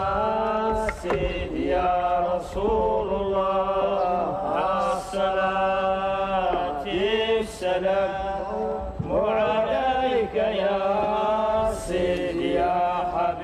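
Devotional chanting of dhikr invocations, the kind builders recited at work: voices intoning long, drawn-out melodic phrases over a steady held low note.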